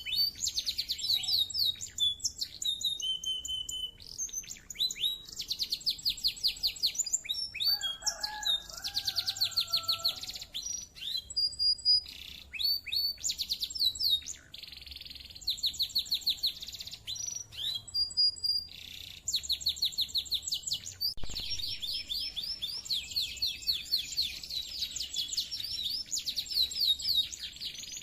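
Domestic canary singing a long, clear song of rapid trills and fast repeated notes, with a few short breaks.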